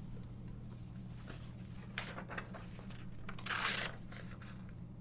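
Faint handling noises of a small metal multi-tool: a few light clicks, a sharper click about two seconds in, and a short rustling scrape about three and a half seconds in.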